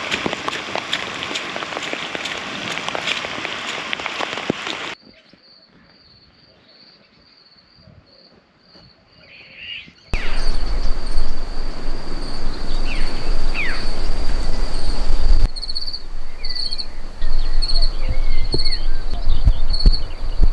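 Rain falling steadily for about five seconds, then cutting off sharply. After that a cricket chirps at an even pulse, faint at first, then louder from about ten seconds in, with short bird calls and wind rumbling on the microphone.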